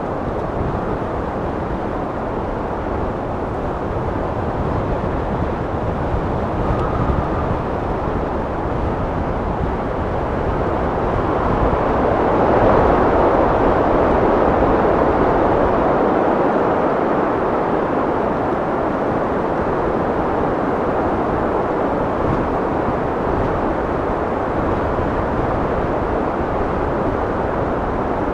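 Wind blowing steadily as a low rushing noise, swelling into a stronger gust about halfway through and then easing back.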